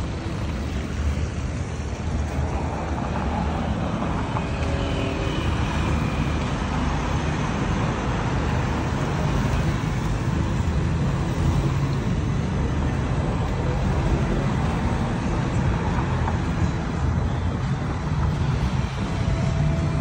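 Road traffic: cars and motor scooters going by, a steady noise of engines and tyres.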